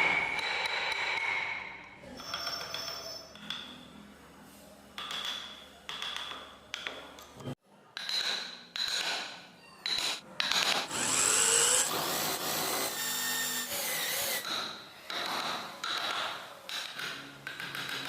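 A small power tool working wood in a string of short, abruptly cut bursts, some with a steady high whine, with rubbing and scraping between.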